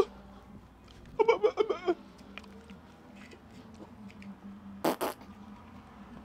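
A man making wordless grunting vocal sounds, a quick run of them about a second in, as a mute person tries to get something across; two sharp smacks come close together just before five seconds in, over a low steady hum.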